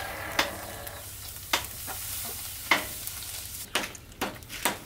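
Dry white granules pouring from a plastic bag into an aluminium pot with a steady hiss. After that, a metal ladle scrapes through the granules and knocks against the pot about once a second.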